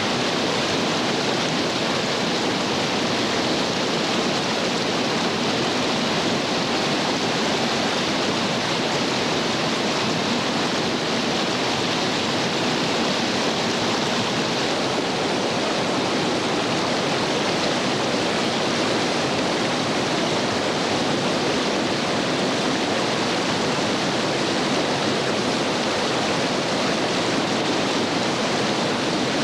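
Steady rushing of whitewater in a creek rapid, the river running at about 1820 cfs.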